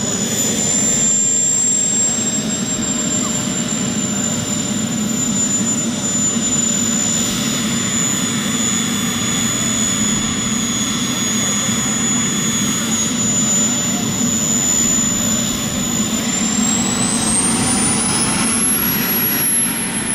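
Jets Munt M210TS model jet turbine in a large-scale RC BAe Hawk, running with a steady high-pitched whine over a low rush. About three-quarters of the way through the whine rises sharply in pitch, holds, and starts to drop again near the end.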